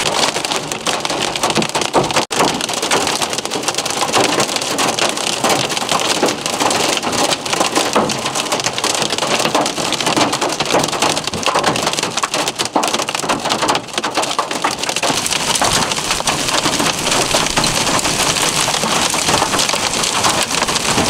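Heavy rain and hail pelting down in a severe thunderstorm: a dense, steady clatter of countless small impacts.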